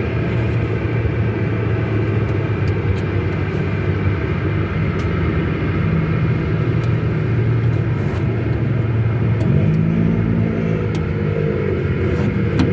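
A motor vehicle engine running steadily with a low hum, its pitch shifting about ten seconds in, with a few faint clicks over it.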